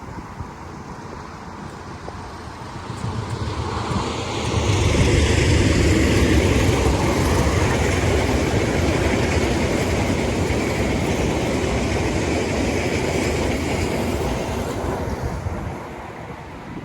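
A train passing close by on the line: its rumble and rail noise build over the first few seconds, stay loud for about ten seconds, then die away near the end.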